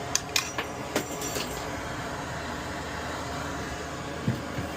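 Tools clicking and clinking on the treadmill control board while a four-legged bridge-rectifier diode is desoldered and worked loose. There are a few sharp metallic clicks in the first second and a half and two soft knocks near the end, over a steady hiss.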